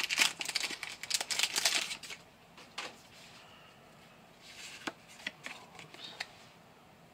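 Foil wrapper of a Pokémon TCG booster pack crinkling as it is torn open by hand, for about two seconds. After that come a few soft, separate clicks and scrapes of the trading cards being slid and handled.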